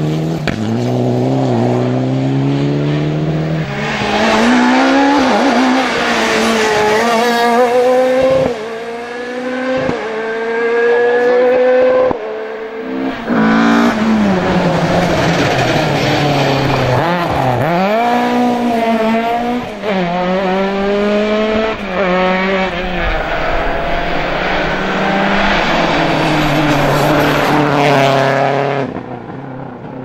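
Rally cars driven flat out, one after another, their engines revving hard up through the gears with a quick upshift every second or two. The last car fades away near the end.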